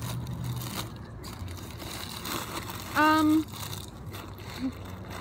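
Paper food wrapper crinkling while people eat, with one short, loud voiced sound about three seconds in.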